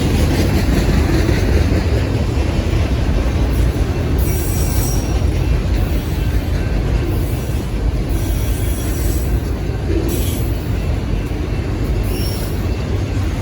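Freight cars of a Union Pacific manifest train rolling past with a steady low rumble, with brief high-pitched wheel squeals about four seconds in and again near the end.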